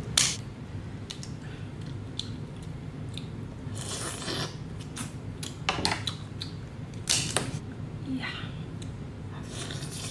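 King crab leg shell snipped with kitchen scissors, giving a sharp crack just at the start. Then come scattered short wet sucking and chewing noises as the crab meat is pulled from the shell and eaten, the loudest about seven seconds in.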